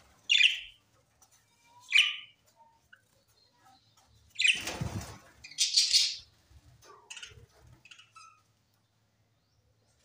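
A flock of budgerigars chirping and calling in short, loud bursts, with smaller calls in between, and wings fluttering as birds fly about the aviary. The calls die away over the last second or two.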